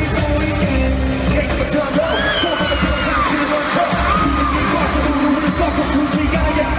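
K-pop music with singing over a steady bass beat.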